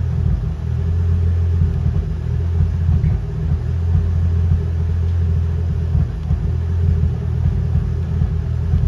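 Turbocharged Nissan RB20 straight-six idling steadily at about 800 rpm.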